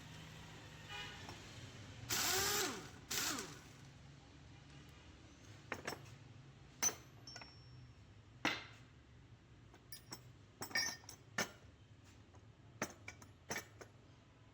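Hand tools clicking and knocking on metal in scattered sharp strikes while an alternator is worked on. A brief louder sound with a sliding pitch comes about two seconds in.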